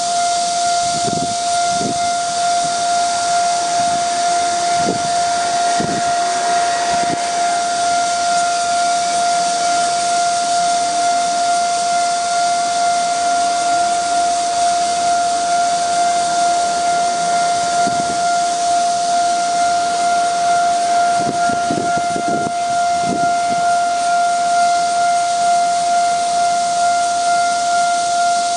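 Level-crossing warning bell sounding one steady unbroken tone while a Taiwan Railways Chu-kuang express hauled by electric locomotive E234 rolls past. Its wheels thud over rail joints a few times, in two clusters near the start and again about three-quarters of the way through, over a steady hiss.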